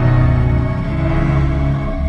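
Background music with held chords over a deep, steady bass.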